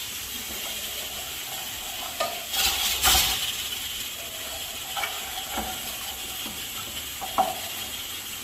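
Garlic and onion frying in oil in a pan, a steady sizzle, with a louder rush of sizzling about two and a half seconds in and a few light knocks of a utensil against the pan as it is stirred.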